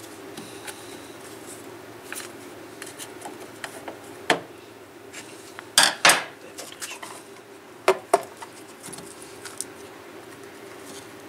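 Scattered metallic clinks and taps from hand tools and parts being handled while the heater core's crimp tabs are bent back and its tanks opened, the sharpest pairs about six and eight seconds in.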